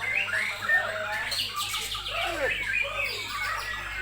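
Bornean shama (murai batu Borneo) singing a fast, varied song of whistles and rising and falling glides, overlapping with other songbirds calling at the same time.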